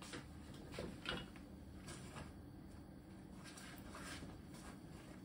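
Faint rustling and a few soft knocks of someone searching through their belongings for a paper, over a low steady background hum.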